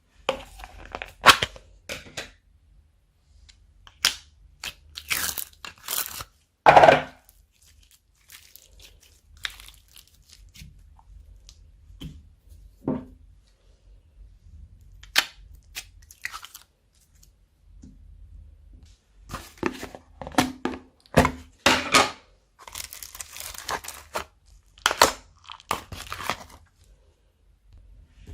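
Slime being mixed and squished, giving irregular sticky crackles, pops and tearing sounds in uneven clusters with short pauses between.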